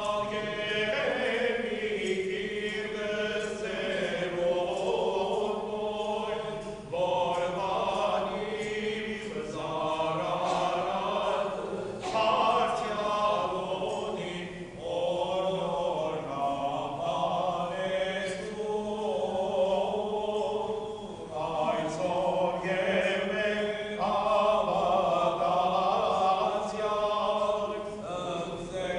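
Armenian church chant sung by a choir of robed clergy and choristers, in long unbroken phrases.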